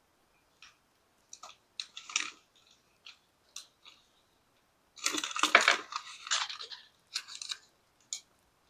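Kitchen handling noises: scattered small clicks and light rustles, then a louder crunchy rustling for about two seconds starting about five seconds in, followed by a few more clicks.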